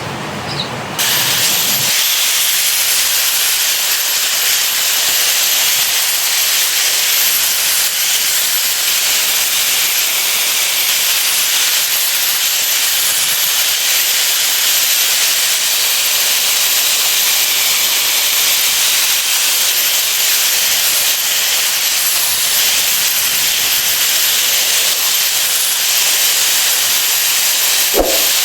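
A loud, steady hiss that starts about a second in, with a thin, wavering high whine above it. A brief low knock comes near the end.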